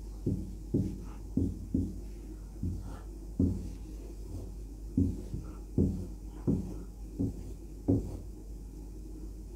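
Marker drawing lines on a whiteboard: a run of short, dull knocks and scrapes at uneven intervals as each stroke lands on the board.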